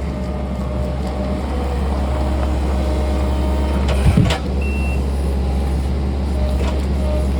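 Heavy diesel machinery running steadily at a low drone, with a faint whine, and one heavy thud about four seconds in.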